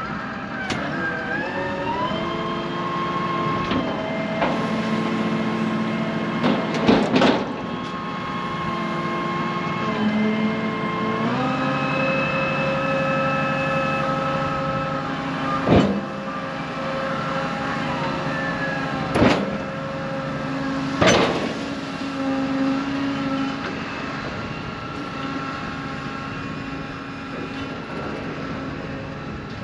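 Tractor engine running under hydraulic load as it powers a dump box unloading sawdust. The revs step up twice, about two seconds in and again around eleven seconds. A few sharp knocks come from the box, around seven, sixteen, nineteen and twenty-one seconds in.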